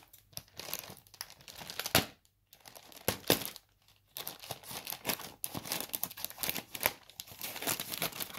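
White plastic poly mailer bag crinkling and rustling as it is handled and cut open with scissors, in irregular crackles with a couple of sharper loud crackles about two and three seconds in.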